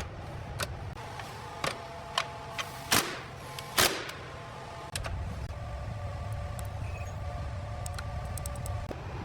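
Workshop machinery running with a low steady hum while metal clicks and knocks sound at scattered moments, the loudest two near the middle. About halfway through, the hum grows louder and a faint steady whine sits over it.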